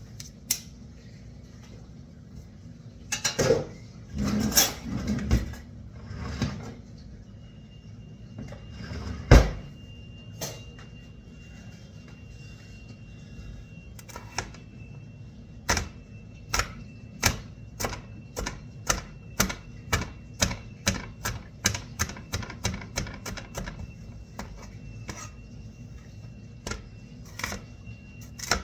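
Kitchen knife chopping on a cutting board. A few scattered knocks and one heavier thump come about nine seconds in, then from about fourteen seconds a long run of sharp, even chops, about two a second.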